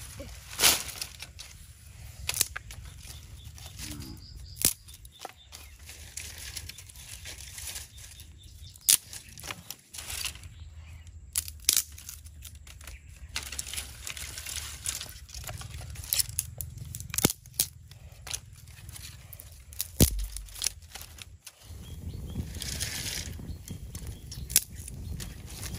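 Scattered sharp clicks and snaps over a low outdoor rumble. Near the end, a fire of dry sticks burns with a steady crackle and hiss.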